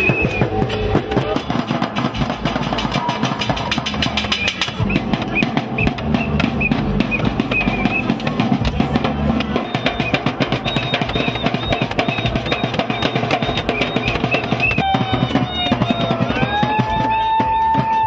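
Protesters' noise-making: a marching drum beaten with rapid, dense strikes while other noisemakers clatter along. A high held tone sounds for a couple of seconds near the end.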